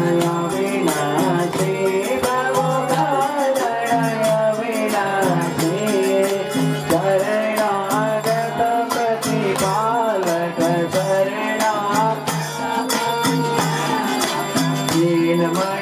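Nepali devotional aarti bhajan: sung melody over instrumental accompaniment, with steady rhythmic hand clapping from the congregation.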